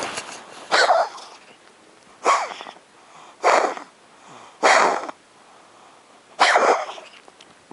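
A pet coughing in a repeated fit: five harsh, noisy coughs in a row, about one every second and a quarter, each lasting about half a second.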